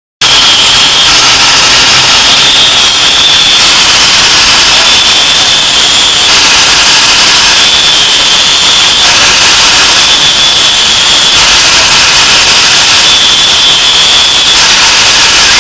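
Electric angle grinder with a thin disc grinding steel at the guard of a blade, a loud steady grinding noise with a high whine that comes and goes several times.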